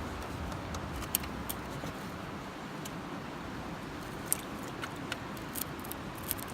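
Steady rush of river water, with scattered light clicks and knocks from a minnow bucket being handled as a trout too big for it is worked out.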